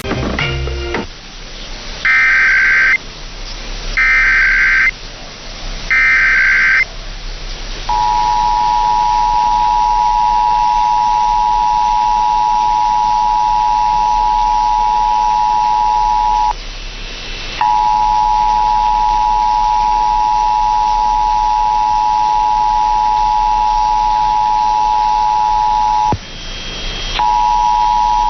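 Emergency Alert System test tones: three short buzzing data bursts of the SAME header, each about a second long, then the EAS two-tone attention signal, a steady loud dual tone (853 and 960 Hz) held about eight seconds. After a brief break the two-tone signal sounds again for about eight seconds, and starts a third time near the end.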